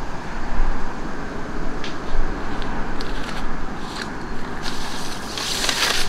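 Wind buffeting the microphone: a steady rumbling rush, with a few faint clicks and a brief loud hiss near the end.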